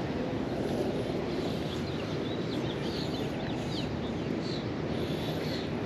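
Steady outdoor background rush, with a few faint bird chirps in the middle.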